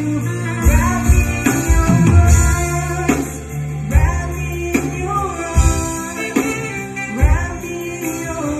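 Live worship music played through a PA: a woman singing over a band with keyboard, a sustained bass line and a steady drum beat.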